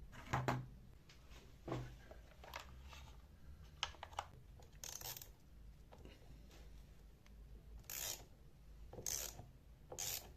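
Small handling sounds of hand work: a few light knocks and clicks, then four short scraping strokes.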